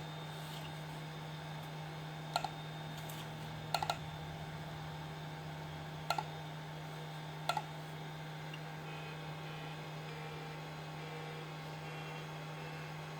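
Sharp clicks from operating an Atari Falcon030 to load a program: five quick pairs or triples spread over about eight seconds. A steady low electrical hum runs under them.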